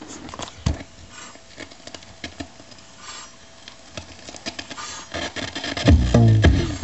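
Light clicks, taps and rubbing as a 7-inch single on a Newcomb classroom record player's turntable is handled to back it up. About six seconds in, music from the record starts playing again loudly through the player.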